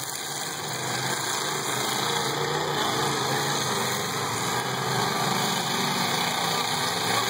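Engines of several demolition derby cars running and idling together, a steady sound with no collisions.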